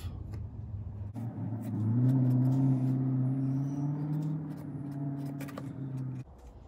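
A low, steady motor hum that comes in about a second in, rises slightly in pitch, holds, then cuts off suddenly near the end.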